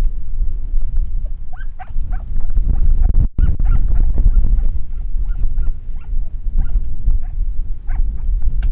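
Hunting dog giving many short, high yelps while running through the crop on a hare's trail, over heavy low wind-and-handling rumble on a moving microphone.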